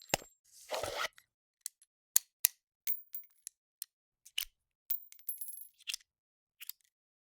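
Firearm handling foley: a string of sharp metallic clicks and clacks from gun parts being worked, several with a brief high ring, and a short sliding scrape about a second in.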